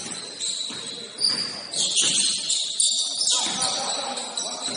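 Pickup basketball game on an indoor court: the ball bouncing, high squeaks of sneakers on the hardwood (densest from about two to three seconds in), and players' voices.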